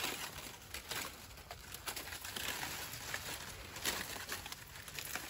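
Irregular rustling, crackling and snapping as bananas are handled and cut from a bunch among dry banana leaves.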